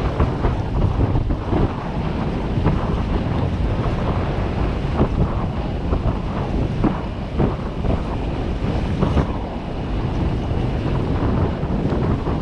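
Wind buffeting the microphone aboard a small fishing boat on open water, a heavy, gusty rumble with the wash of water beneath it.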